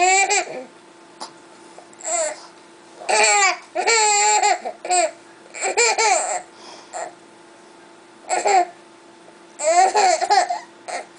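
A baby laughing and babbling in short high-pitched bursts, about ten of them, with short pauses between.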